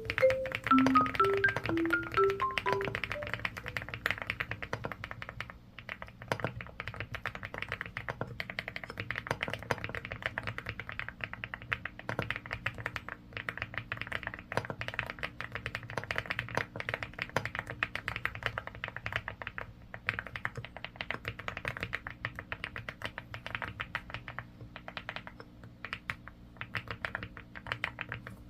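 Typing on a custom mechanical keyboard with raw zero switches: fast, irregular key clacks, over soft background music that opens with a few marimba-like notes.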